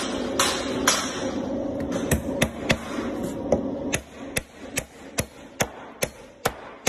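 Home-cast metal hammer striking a nail into a wooden pallet plank: a steady run of sharp blows, about two to three a second.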